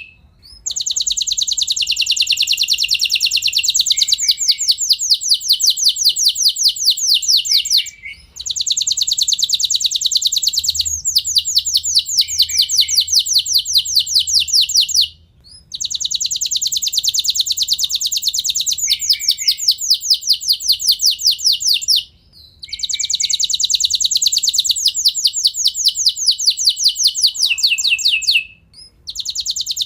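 Domestic canary singing long rolling trills: runs of rapid, evenly repeated high notes, each lasting several seconds, broken by four short pauses.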